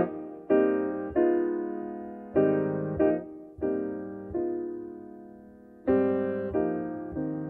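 Slow piano music: single chords struck about once a second and left to fade before the next.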